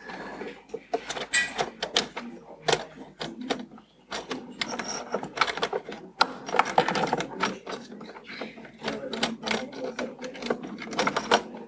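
Irregular clicks and clatter close to a microphone: hands handling a laptop, video cables and adapters on a lectern.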